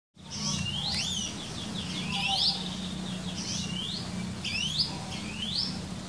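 A small songbird singing: about five short phrases of quick rising-and-falling whistled notes, roughly one every second, over a steady low hum.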